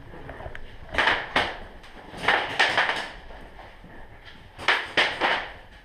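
Sharp knocks or clacks in three quick groups of two or three.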